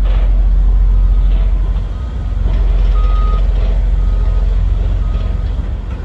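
Heavy construction equipment's back-up alarm beeping at a single pitch about once a second, over the low rumble of diesel machinery.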